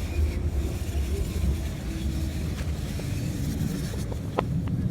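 London Underground train running, a steady low rumble with a few light clicks near the end.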